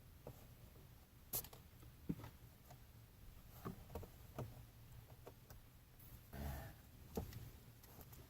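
Faint scattered clicks and light knocks, with a brief rustle about six seconds in, from hands working Gorilla Tape over a van's plastic window-blind fitting.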